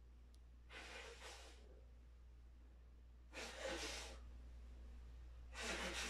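Three breaths close to the microphone, each about a second long and a couple of seconds apart, over a faint low steady hum from a Lasko box fan running.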